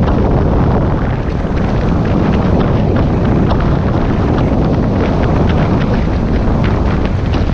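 Airflow in paraglider flight rushing over the camera microphone: a loud, steady wind rumble with scattered small crackles.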